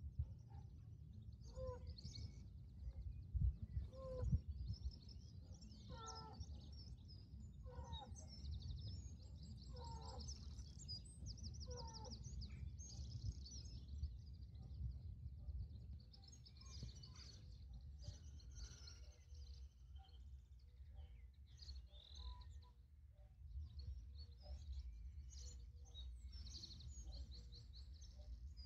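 Faint dawn birdsong: many small birds chirping and trilling high, with a lower call repeated about every two seconds for the first twelve seconds or so. A low rumble runs underneath, with a couple of bumps about three to four seconds in.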